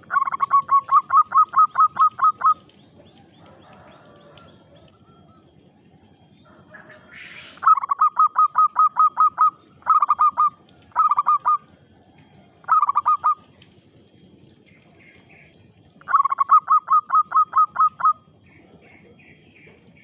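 Zebra dove (perkutut) cooing in runs of quick, staccato notes, about five a second. One long run at the start, a long run followed by three short bursts in the middle, and another long run near the end.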